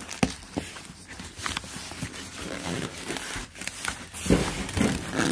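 Hands working the flaps of a cardboard box and the styrofoam packing inside it: cardboard rustling and scraping, with scattered sharp knocks, the loudest a little after four seconds in.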